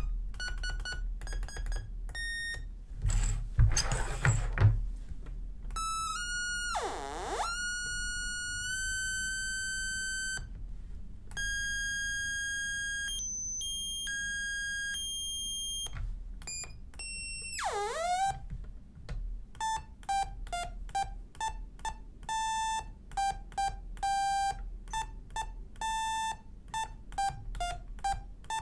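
A littleBits synth keyboard module played through its small speaker module, giving electronic tones with stacked overtones. It plays short notes at first, a burst of hiss about three to four seconds in, two tones that swoop down and back up, held notes in between, and a run of quick staccato notes at about two a second near the end.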